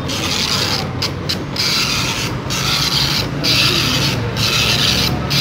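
Epson dot-matrix printer printing at print-darkness setting 3: a harsh, buzzing rasp from the print head, broken by a short pause about once a second.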